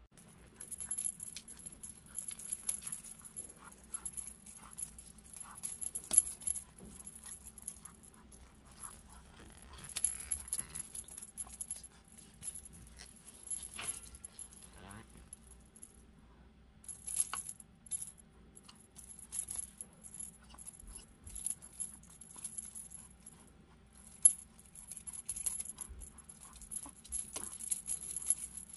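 Small bell on a pom-pom wand toy jingling in irregular bursts as a kitten bats at it and pounces on it, with a few sharp knocks of the toy on the floor.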